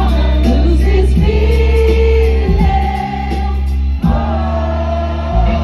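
A live pop ballad amplified through a concert PA: sung vocals over a band with a heavy, steady bass.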